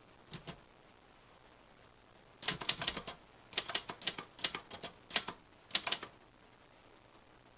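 Typewriter keys striking in uneven runs: two light taps near the start, then a quick cluster of keystrokes about two and a half seconds in, followed by single strokes roughly half a second apart. A faint high ring hangs beneath the later strokes.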